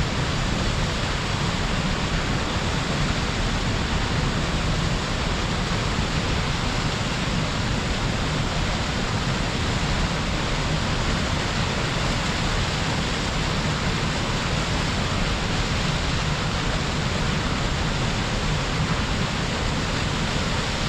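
Waterfall pouring steadily: a constant, even rush of falling water with no breaks.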